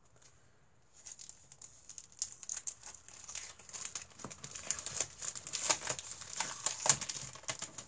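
Crisp crinkling and rustling of a scrapbooking paper pack and its wrapping being handled and opened. It starts about a second in as scattered small crackles and grows louder and busier toward the end.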